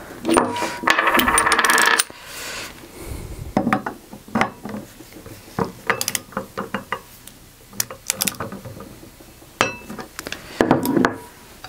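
Metal clinking and tapping of small tools and parts being handled during fitting of a bronze Autoprop H6 propeller blade to its hub. A loud metallic rattle in the first two seconds, then scattered sharp clicks, with a louder cluster near the end.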